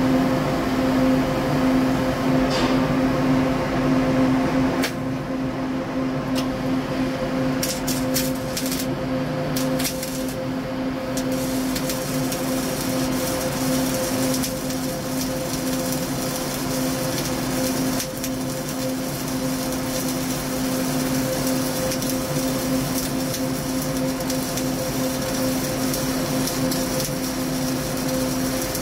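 Flux-cored (CO2-shielded) arc welding a vertical-up joint: a few short crackles as the arc strikes, then the steady crackling hiss of the arc for the rest of the time. A steady machine hum runs underneath.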